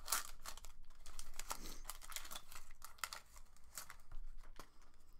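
Foil wrapper of a Pokémon trading-card booster pack crinkling and rustling in the hands as the opened pack is handled and the cards are pulled out, a quick run of crackles.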